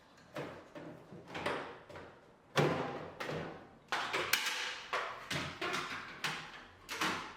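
Hard plastic washing machine parts being handled: a quick string of knocks, taps and scrapes, about a dozen in all.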